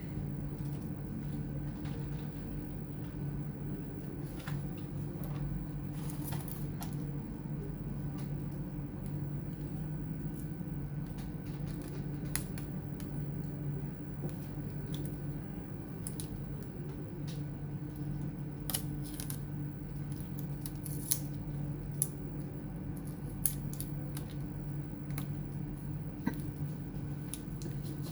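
Scattered small clicks and taps from hands working on a laptop's case, screws and parts with a screwdriver, over a steady low hum.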